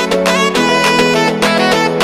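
Music: a sustained melody over a steady beat.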